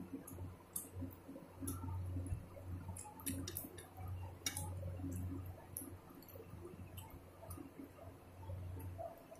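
Close eating sounds of rice and chicken curry eaten by hand: chewing and mouth clicks, with fingers squishing through the rice, as many small scattered clicks over a low hum that comes and goes.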